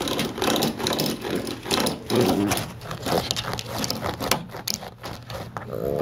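Spring door stopper being batted and bitten by a puppy, twanging and rattling in quick, irregular strokes.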